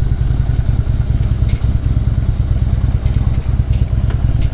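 Harley-Davidson V-twin engine running at low speed with a steady low rumble. A few sharp ticks come through, from loose asphalt pebbles under the tyres.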